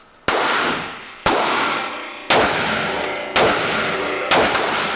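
Handgun fired five times at a steady pace, about one shot a second, each report ringing out in the echo of an indoor shooting range.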